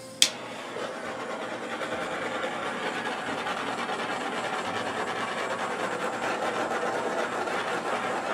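A handheld torch clicks as it lights, then burns with a steady hiss as it is swept over wet acrylic pour paint.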